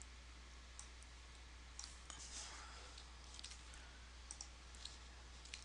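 Faint computer mouse clicks, about seven short clicks scattered irregularly, over a low steady hum.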